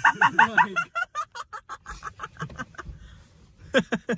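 People laughing: a burst of rapid ha-ha pulses that trails off over the first three seconds, then a short laugh again near the end.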